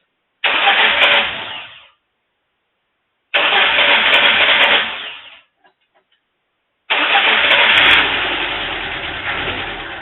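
1989 Mazda B2200's 2.2-litre four-cylinder engine being cranked on the starter after a head gasket replacement: two short tries that stop, then a third a little over halfway through that catches and keeps running as the sound slowly eases off.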